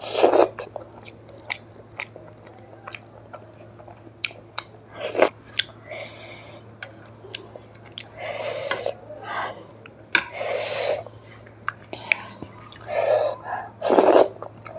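Close-miked eating sounds: biting and chewing mouthfuls of rice and curry eaten by hand, in about half a dozen separate bursts, the sharpest at the very start and near the end. A faint steady hum runs underneath.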